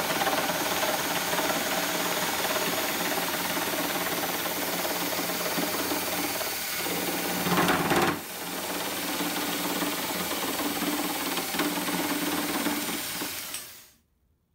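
Bosch jigsaw running and cutting through thick Douglas fir, a steady saw noise. A little past the middle it grows louder and harsher for about half a second, dips briefly, then carries on, and it cuts off suddenly near the end.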